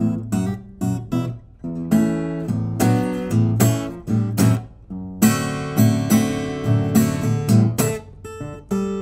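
Tasman TA100P-E parlour acoustic guitar, solid spruce top with sapelli back and sides, being played: picked bass notes and sharply struck chords, each ringing out and dying away, with a busier run of strummed chords in the second half.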